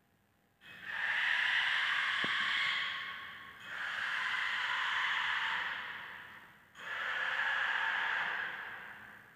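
Three long, loud breaths blown close into a microphone, each about three seconds long, starting sharply and trailing off.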